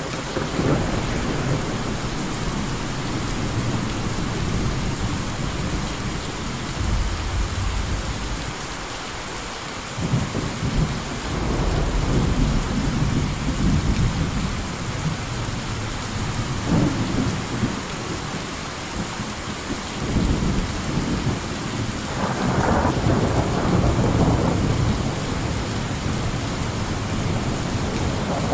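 Thunderstorm: steady heavy rain with low rolling thunder that swells several times, the strongest peal about three-quarters of the way through.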